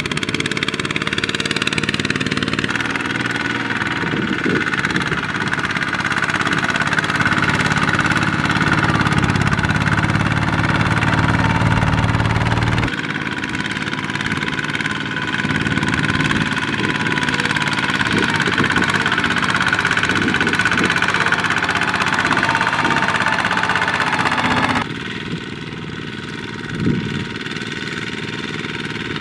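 Diesel engines of Kubota two-wheel walking tractors running steadily while they pull trailers loaded with rice sacks. The engine note shifts abruptly twice, about a third of the way in and again near the end, where it drops a little in level.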